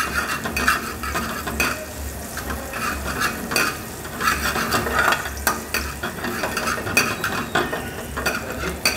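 Julienned green chilli sautéing in hot oil in a pan: a steady sizzle with a spoon stirring and scraping against the pan in frequent short clicks.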